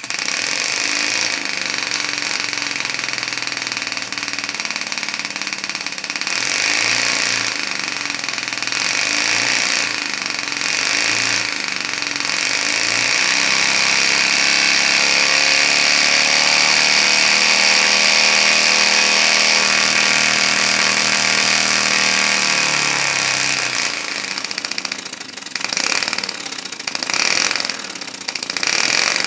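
3D-printed two-cylinder opposed compressed-air piston engine running fast on both cylinders and turning a carbon-fibre propeller: a steady buzz of rapid exhaust pulses over a bright hiss of air. Its pitch climbs through the middle and falls away about 23 seconds in, and the running turns uneven in the last few seconds.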